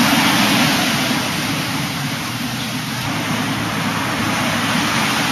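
Steady rushing noise of surf washing onto a sandy beach.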